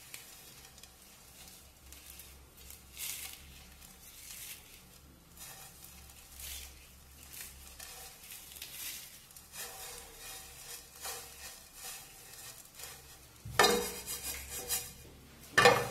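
Dry roasted vermicelli strands crunching and snapping faintly as gloved hands break them up in a non-stick frying pan. Near the end there are two louder clatters as the pan is gripped by its handle and moved on the gas burner.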